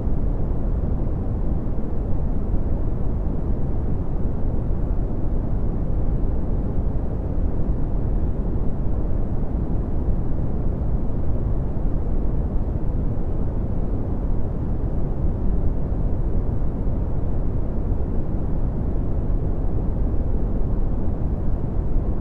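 Synthetic red (Brownian) noise: a steady, deep rumbling hiss with most of its energy in the low end and little treble, unchanging throughout.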